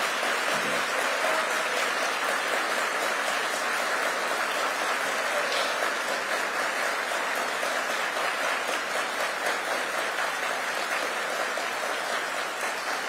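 Large audience applauding steadily, a long round of applause that eases off slightly near the end.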